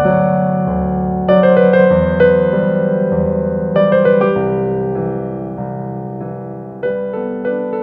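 Soft piano-style keyboard music: a few notes and chords struck every second or two, each ringing and fading away.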